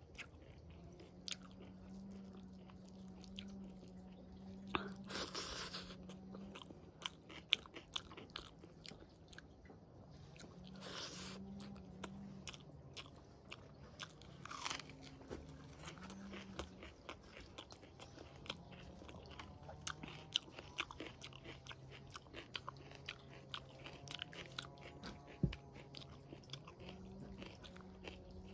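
Close-up eating sounds of a person chewing mouthfuls of rice, dal and potato curry eaten by hand, full of small wet mouth clicks and smacks.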